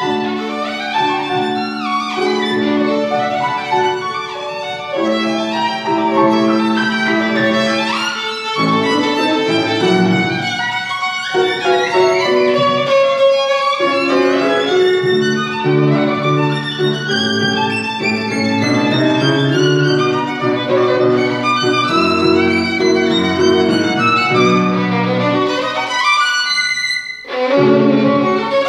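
Violin and grand piano playing together: long bowed violin notes with vibrato over the piano's accompaniment.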